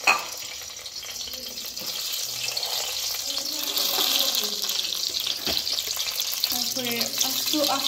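Bay leaves frying in hot mustard oil, a steady sizzle that grows louder about two seconds in. A sharp knock sounds right at the start.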